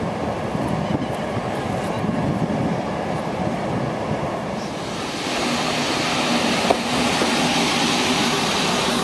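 Inlandsbanan passenger railcar running at a station platform: a steady noise, joined about halfway through by a low steady hum and more hiss, with a single click shortly after.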